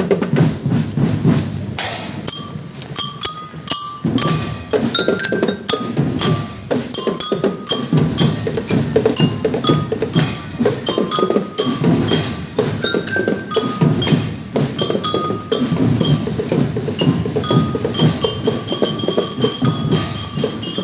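Marching drum band playing: rapid drum strokes with a bright melody of short struck-bell notes over them.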